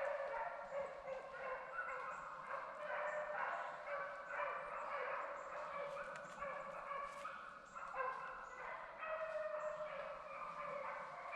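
A pack of deer hounds baying and barking with many voices overlapping, giving tongue as they run a deer.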